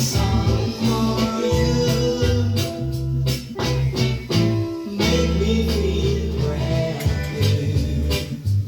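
Reggae record playing: a deep, heavy bass line under guitar and drums.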